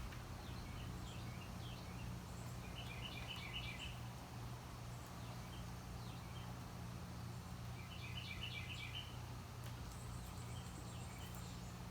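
A bird chirping in two short runs of quick, high notes a few seconds apart, with a few single chirps between, over a steady low hum.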